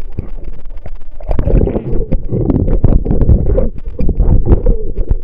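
Sea water sloshing and churning over a handheld camera as it bobs at the surface and dips under, a loud low rumble broken by many short knocks and splashes. It grows louder about a second in.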